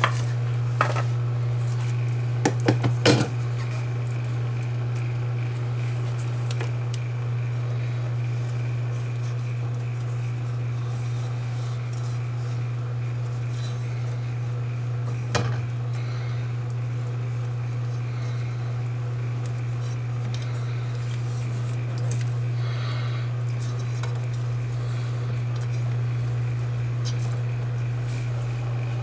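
Steady low hum from the powered-up Sony TC-200 reel-to-reel tape deck. Over it come sharp plastic clicks and clatter as a clear tape reel is fitted and the tape is threaded, a quick cluster a few seconds in and a single click near the middle.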